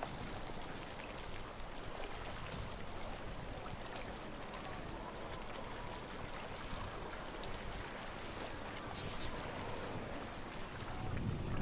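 Calm sea water lapping and washing at the shoreline, a steady wash with scattered faint clicks. A gust of wind rumbles on the microphone near the end.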